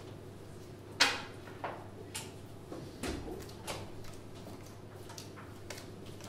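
Playing cards being dealt and laid down on a tabletop: a series of irregular sharp taps and knocks, the loudest about a second in.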